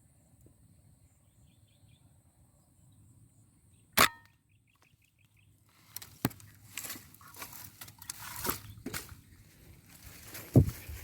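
A single sharp air rifle shot about four seconds in, with a brief ringing tone after it, following a few faint bird chirps. From about six seconds on there are rustling footsteps through vegetation with scattered snaps and crunches.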